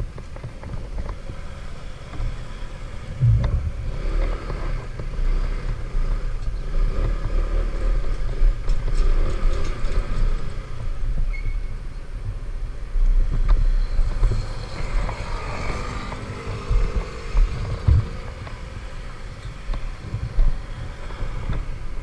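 Kymco 125 cc scooter ridden in traffic: its engine runs under a heavy low rumble of wind and road noise, with a stronger engine note for a few seconds about two-thirds of the way through.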